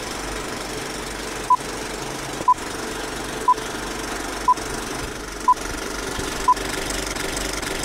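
Film projector running with a steady mechanical rattle, with a short high beep once a second, six beeps in all, as a film countdown leader ticks down. The rattle cuts off abruptly at the end.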